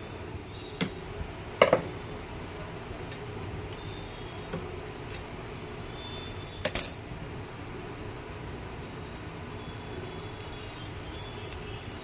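A few sharp metallic clinks and knocks, the loudest about two seconds in and again near seven seconds, over a steady low hum.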